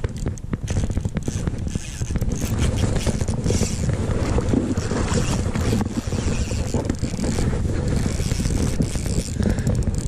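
Steady low wind rumble on a chest-mounted microphone, with scraping and rustling from a rain-jacket sleeve and a spinning reel being handled while a hooked salmon is played on the rod.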